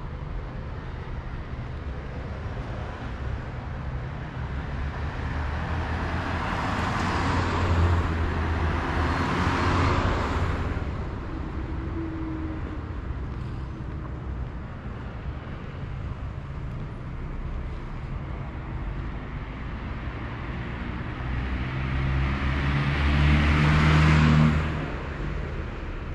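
Cars passing along the street: road noise swells and fades as vehicles go by, once about eight to ten seconds in and again near the end, over a steady low traffic rumble.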